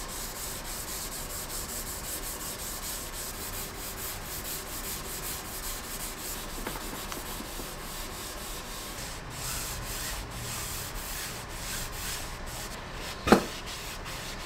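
Abrasive hand pad scrubbing the machined ways of a cast-iron milling-machine column in quick, repeated back-and-forth strokes, a dry rasping hiss. A single sharp knock sounds about a second before the end.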